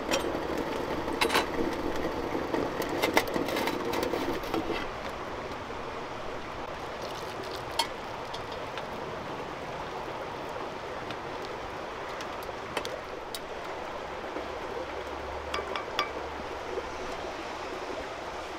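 Tea being made in a metal pot and mug: scattered light clinks of metal cookware over a steady hiss, with a louder rushing sound in the first four seconds or so.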